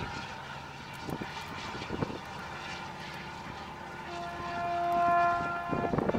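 A ship's horn sounds one steady, long blast, starting about four seconds in and swelling before it stops, over a rumbling harbour background with a few knocks.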